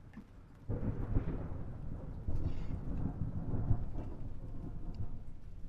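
Thunderstorm sound effect: a low rumble of thunder with rain, starting about a second in, swelling, then slowly fading.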